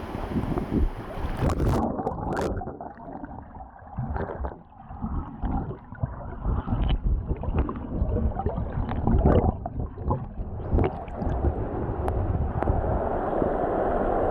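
Muffled sloshing and gurgling of stream water, with irregular low thumps; about two seconds in, the sound turns dull, as if the microphone has gone into the water.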